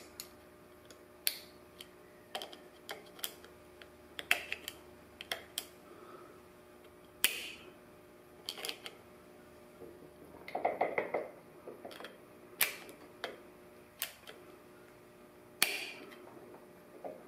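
Sharp metal clicks and clinks of steel transmission parts and tools being handled during NSG370 main-shaft disassembly, scattered singly with a quick rattling run of clicks about ten seconds in.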